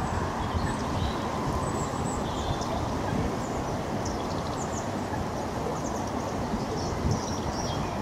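Steady low outdoor rumble, with short, faint, high chirps from small birds scattered through it.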